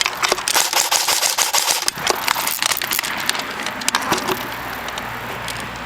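Airsoft guns firing during a skirmish: a fast, irregular run of sharp clicks and cracks, thickest in the first two seconds and thinning out over a steady hiss.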